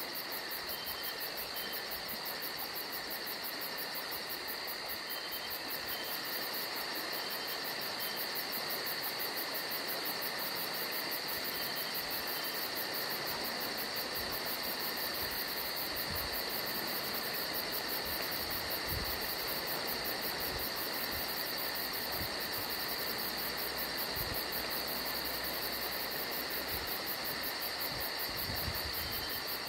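Steady evening chorus of crickets and other insects: a dense, continuous high trilling with a fast-pulsing very high note above it. Now and then there is a soft low thump.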